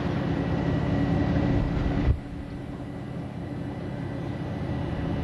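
A boat engine running with a steady low hum under a rushing noise. The rushing noise drops off abruptly about two seconds in, leaving the engine hum.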